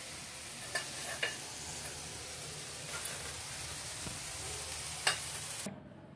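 Chopped vegetable filling sizzling in a steel kadhai while a perforated steel spatula stirs it, with a few sharp clicks of the spatula against the pan. The sizzle cuts off suddenly near the end.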